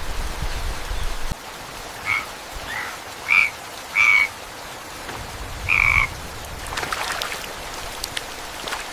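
A frog calling: five short calls between about two and six seconds in, the last one the longest, over a steady hiss of rain.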